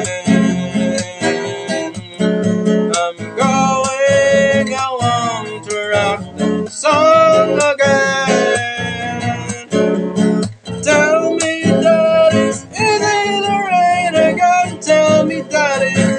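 A man singing while strumming an acoustic guitar capoed on the neck, with a steady strummed rhythm under a sung melody that holds and bends long notes without clear words.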